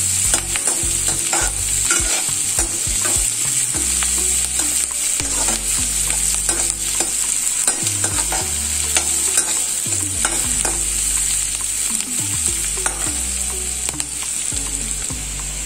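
Sliced onions and chillies frying in hot ghee and butter in a metal kadai, a steady sizzle, while a slotted metal spatula stirs them, scraping and clicking against the pan. The onions are being sautéed until they turn brown.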